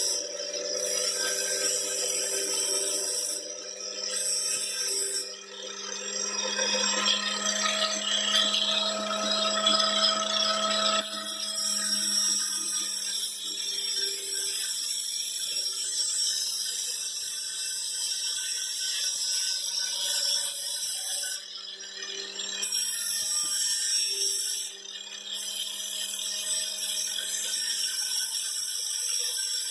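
A knife blade being ground on a motor-driven sharpening wheel: a steady motor hum under a loud high grinding hiss. The hiss breaks off briefly about four times, when the blade comes off the wheel.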